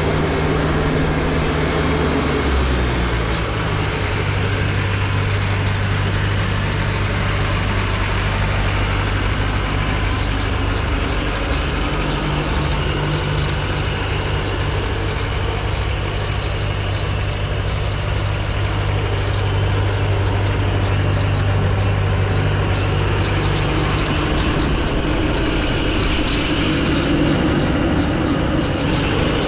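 2017 Bobcat T550 compact track loader's diesel engine running steadily, its engine note changing about two and a half seconds in and again near the end.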